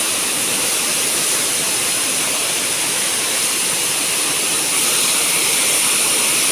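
Waterfall pouring: a steady, loud rush of water, a little louder about five seconds in.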